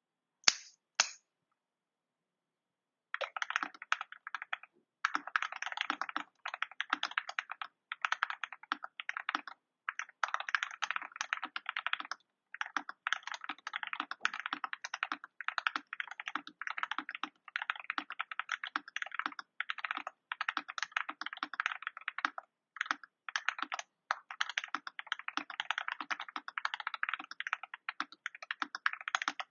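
Typing on a KBD67 Lite mechanical keyboard with lubed Cap Milky Yellow linear switches, PBT keycaps and a polycarbonate plate: a warm-sounding, fast run of key clacks in short bursts with brief pauses, starting about three seconds in. Two sharper, louder clicks come about half a second and a second in.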